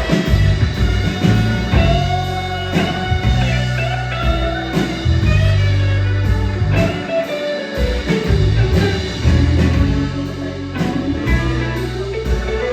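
Rock band playing, with a psychedelic, bluesy feel: an electric guitar line wavers over sustained bass notes, and drums keep a steady cymbal beat.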